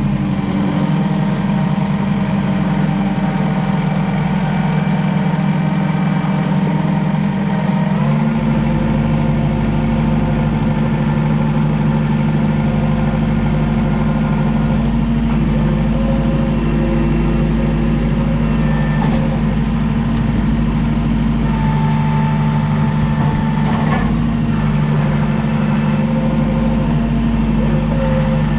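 Vehicle engine running steadily. About eight seconds in, its low drone grows heavier and shifts slightly in pitch.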